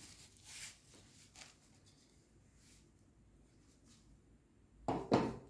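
Plastic blender parts being handled: a soft rub about half a second in, a few faint ticks, then two sharp knocks near the end as a part is set down or fitted.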